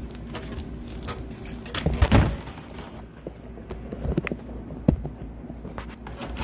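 Scattered knocks, clunks and clicks of hands and tools working at a dishwasher's drain connection, with the loudest cluster about two seconds in and a single sharp click near the end.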